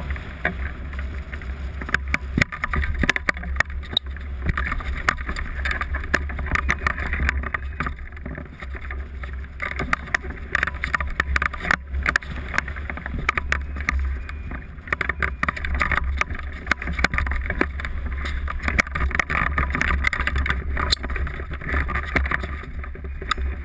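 Wind buffeting the microphone of a camera mounted on a hang glider: a steady low rumble with a rushing hiss and many scattered clicks and crackles as the glider comes in over the ground to land.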